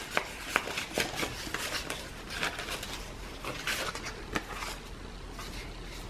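Paper and card tags rustling and clicking as they are handled and slid in and out of a paper pocket, in short irregular bursts.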